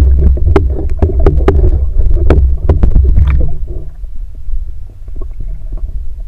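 Muffled underwater rumble with many sharp clicks and knocks, heard from a camera held under water while swimming; about three and a half seconds in it drops to a quieter rumble with fainter clicks.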